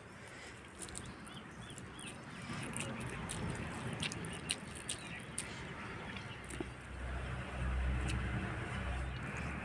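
Scattered light clicks and taps from hands eating rice out of clay bowls, over faint outdoor background noise. A low rumble grows louder about seven seconds in.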